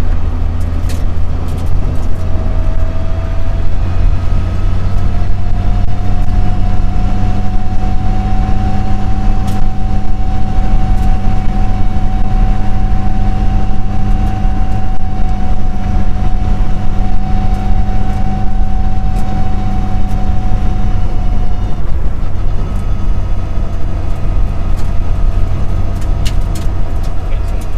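Mitsubishi Lancer Evo 6 rally car heard loud from inside the cabin, engine and drivetrain running at a steady speed with a steady whine over the engine note. About three quarters of the way through the whine cuts off as the car eases off, then the engine picks up again at a lower pitch.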